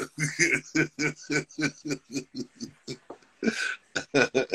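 A man laughing in a long run of short, even chuckles, about four a second, with a breathy gasp about three and a half seconds in before the chuckling goes on.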